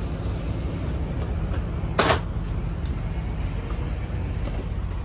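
Steady low engine rumble of an idling vehicle, with one sharp clack about two seconds in, like a door or latch shutting.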